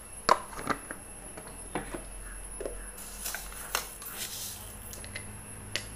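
Coconut oil heating in a kadai on a gas burner: scattered faint clicks and crackles, the sharpest one near the start, with a brief soft sizzle a few seconds in.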